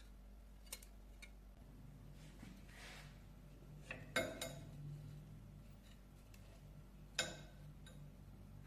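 A few light metallic clinks and knocks from metal objects being handled and set down, three of them clearer than the rest and the loudest a little past the middle, over a faint steady low hum.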